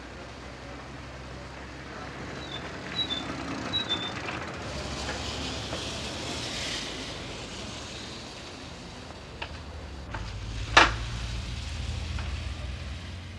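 Street traffic and a small moped engine running as the moped rides up and stops at the kerb, with a low steady engine drone in the last few seconds. One sharp knock just before the end is the loudest sound.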